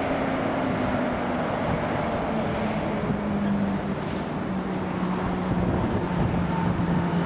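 Boeing 777-300ER's twin GE90-115B turbofans at takeoff power: a steady loud jet rumble with a low hum that slowly falls in pitch as the airliner passes.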